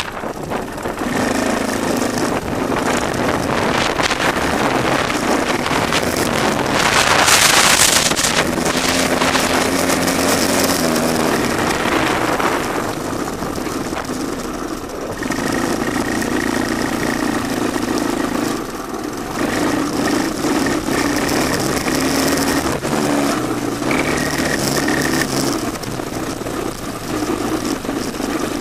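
Honda ATC185S three-wheeler's single-cylinder four-stroke engine running under way, its pitch stepping up and down with throttle and gear changes. Wind noise on the microphone, with a loud rush of noise about seven seconds in.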